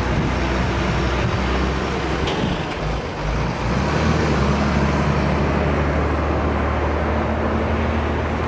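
Road traffic: cars and other motor vehicles running and crossing, a steady low engine hum under a continuous rush of noise.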